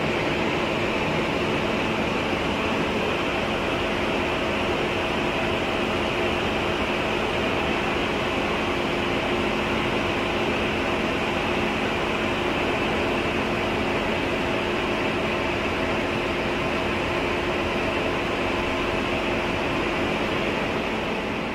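A 1961 Philips DP70 70 mm film projector running in its booth: a steady whirring mechanical hum with a few constant tones, unchanging throughout.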